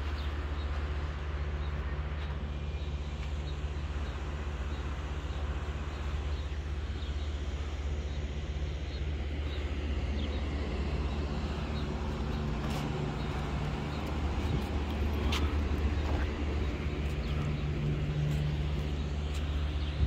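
Outdoor ambience dominated by a steady low hum, with a few faint short ticks and chirps over it.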